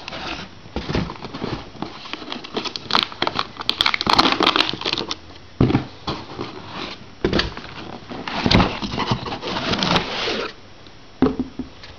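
Cardboard box and packaging being opened and handled: irregular rustling, crinkling and scraping with a few sharp clicks and knocks, busiest about four seconds in and again from about eight to ten seconds, quieter near the end.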